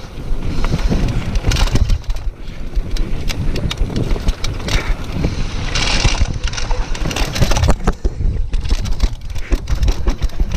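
Mountain bike descending a dirt singletrack at speed: tyres rumbling over the dirt and wind rushing across the microphone, with the bike rattling and knocking constantly over bumps. A couple of brief hissing scrapes come near the start and about six seconds in.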